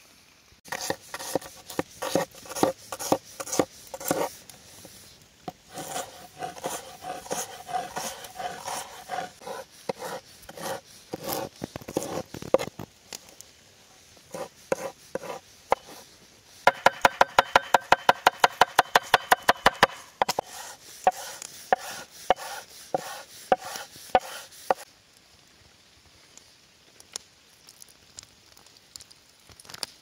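Kitchen knife chopping on a wooden cutting board: irregular cuts, with a fast even run of about eight chops a second about two-thirds of the way in, stopping a few seconds before the end.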